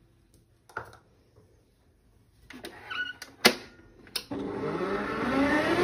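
A few clicks and knocks as the stand mixer's tilting head is lowered and locked over the bowl, one sharp clunk the loudest. About four seconds in, the mixer motor starts and runs with a whine that rises in pitch as the speed knob is turned up, the wire balloon whisk beating the milk mixture.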